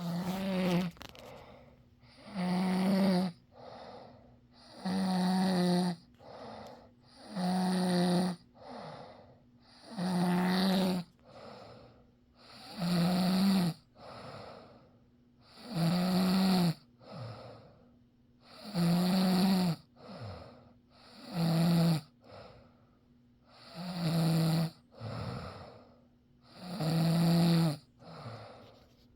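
Snoring in a steady rhythm: a rough pitched snore of about a second roughly every three seconds, each followed by a shorter, softer breath sound.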